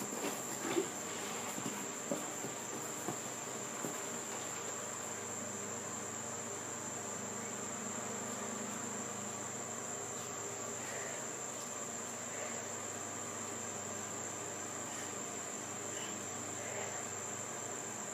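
Insects trilling steadily outdoors, a continuous high-pitched tone, with a few short knocks in the first four seconds.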